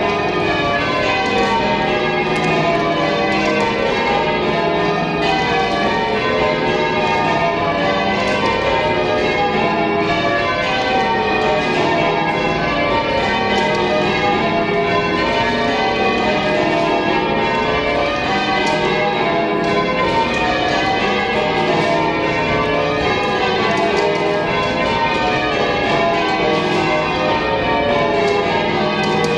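Change ringing on the back eight bells of Gloucester Cathedral's ring of twelve: a continuous, even stream of bell strikes overlapping into a dense ringing wash, with no break.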